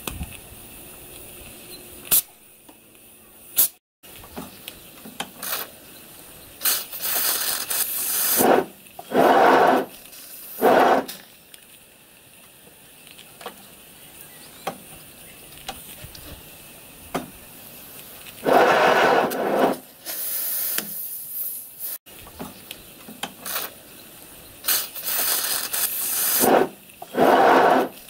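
7¼-inch gauge 0-6-2 live steam locomotive under steam for the first time, blowing out hissing bursts of steam, each a second or two long, as the regulator is opened and the wheels try to turn. Light clicks of the cab controls come between the bursts. The engine will not keep going, which the builder puts down to the pistons expanding and tightening up under steam.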